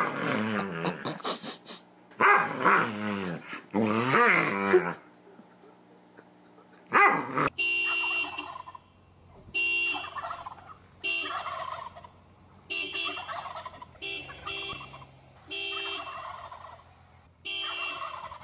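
A dog making drawn-out whining, yowling vocal sounds that rise and fall for about five seconds. From about seven seconds in comes a run of short car-alarm-like beeps, repeating about every second and a half, among wild turkeys gobbling.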